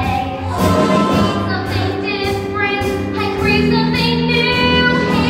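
Singing with musical accompaniment, the voice holding long notes.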